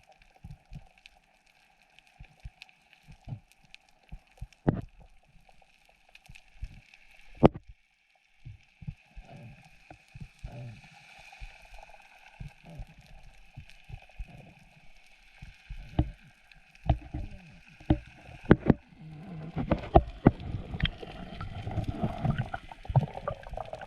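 Underwater sound picked up through the camera's housing while freediving: a faint steady hum with scattered sharp clicks and knocks, and muffled thumps and water movement that grow busier in the last several seconds.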